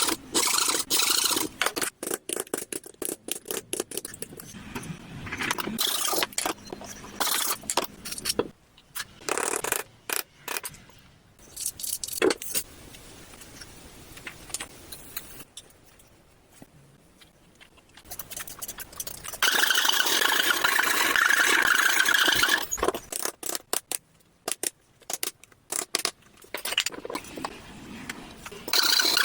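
Workshop sounds of woodworking: wood and tools scraping and clattering in quick irregular strokes, with quieter gaps, and a few seconds of steady loud noise about two-thirds of the way through.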